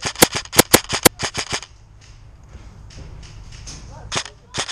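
Airsoft rifle firing a fast string of sharp cracking shots, about a dozen in the first second and a half, then a pause and two more shots near the end.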